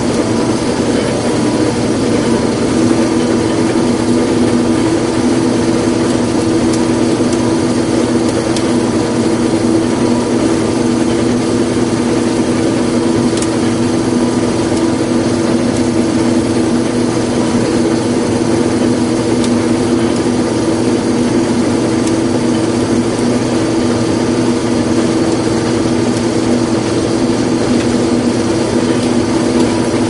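Combine harvester running steadily while harvesting wheat, heard from inside the cab: a constant mechanical hum with a few steady engine tones.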